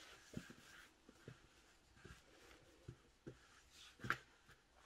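Faint handling of a crocheted wool scarf being folded on a tabletop: soft rustling of the yarn with a few light bumps, the clearest about four seconds in.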